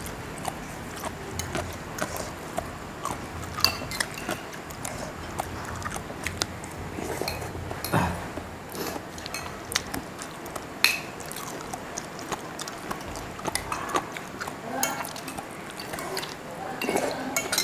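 Metal spoons and forks clinking on porcelain plates as people eat, in scattered light clicks.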